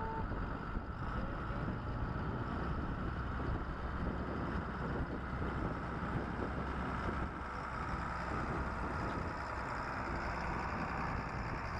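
Farm harvest machinery, a combine and tractor, with engines running steadily, mixed with wind noise on the microphone.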